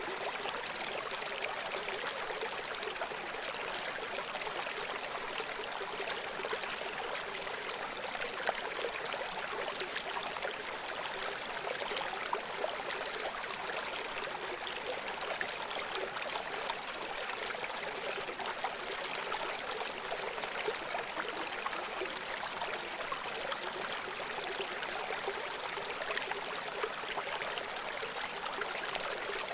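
A running stream: water flowing and trickling steadily over rocks, a hiss with small splashes and gurgles.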